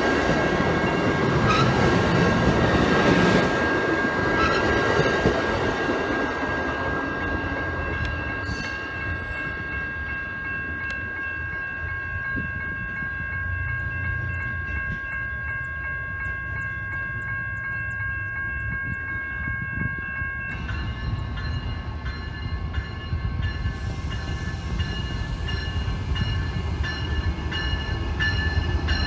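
Amtrak passenger train rolling past close by, its cars rumbling and rattling on the rails, then fading as it pulls away. Steady high ringing tones sound over it and change pitch about twenty seconds in.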